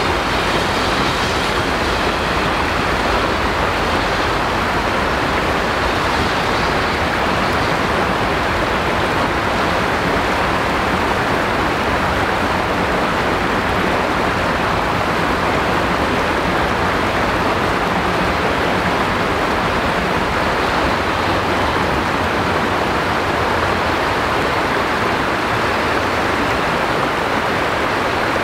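Steady rush of fast-flowing river water, an even, unbroken roar.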